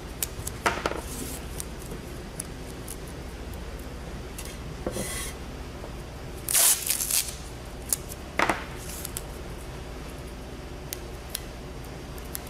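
Masking tape being pulled off its roll in several short rasping rips, the loudest about seven seconds in, with small clicks and rubbing as the strips are handled and pressed onto the ceramic platter.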